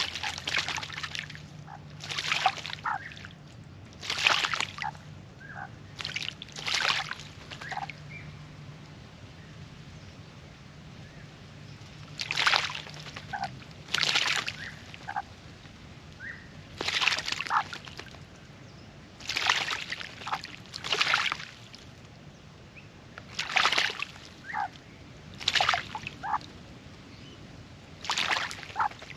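Australian magpie bathing in a birdbath: about a dozen short bouts of splashing and sloshing water, each under a second and followed by dripping, with pauses of a second or more between them.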